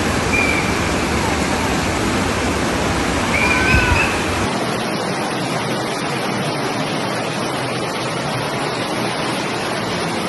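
Steady rushing of a flooded, overflowing stream, with a few brief high-pitched calls in the first four seconds. About four and a half seconds in, the deep low rumble drops out and a thinner steady rush continues.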